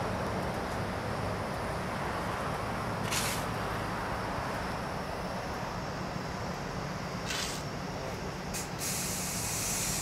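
Diesel engines of an asphalt paver and asphalt trucks running steadily. Short bursts of hissing air come about three seconds in and about seven seconds in, and a longer hiss comes near the end.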